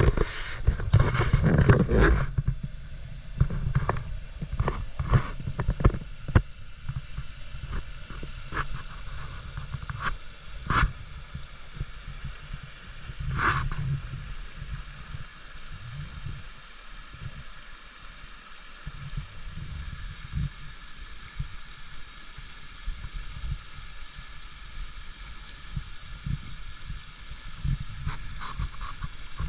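Flowing stream water heard through a GoPro held underwater: a steady muffled rush with a low rumble. Scattered knocks and scrapes come from the camera housing, loudest and most frequent in the first few seconds.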